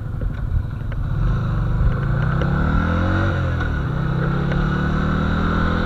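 Yamaha Virago XV125's small air-cooled V-twin, with its exhaust silencer drilled out, pulling on the road. The engine note climbs, falls back sharply about three seconds in, then climbs again.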